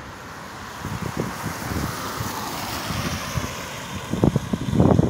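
A car passing on the wet road, its tyres hissing on the water-covered asphalt as the sound swells and then fades. Wind rumbles on the microphone near the end.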